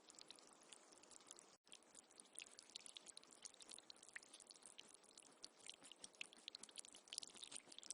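Faint trickling, dripping water: a dense, irregular patter of small ticks over a soft hiss, broken by a brief gap about a second and a half in.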